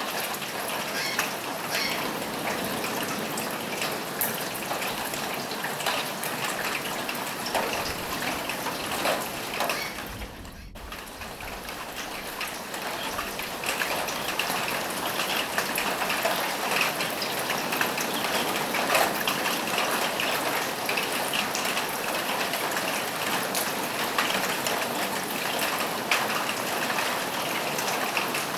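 Steady rain falling on a roof, a constant hiss with many separate drops ticking through it; the sound dips briefly about ten seconds in.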